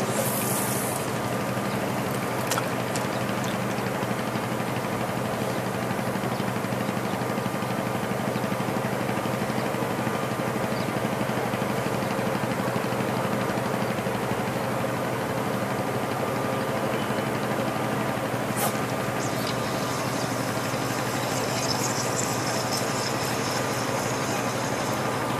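A steady, even engine drone, like a motor idling, with a couple of brief faint clicks.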